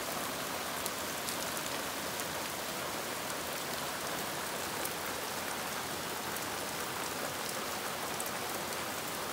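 Hard, steady rain falling on a lawn and tree foliage: an even, dense hiss with a few sharper drop ticks here and there.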